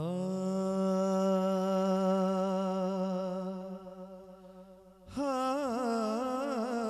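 A man's voice singing a naat unaccompanied through a PA system, opening a kafi: one long held note that fades after about three and a half seconds, then a new phrase about five seconds in, with a wavering, ornamented line. A steady low drone sounds underneath.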